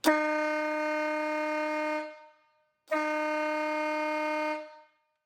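Compressor-driven 12 V air horn sounding two steady single-note blasts of about two seconds each, the second starting about three seconds in. The horn is a bit weak, with its mini compressor not yet lubricated.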